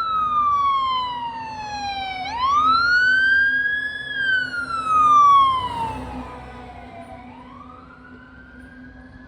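Fire engine siren wailing, its pitch sweeping slowly up and down over a steady low hum, then fading away after about six seconds as the truck moves off.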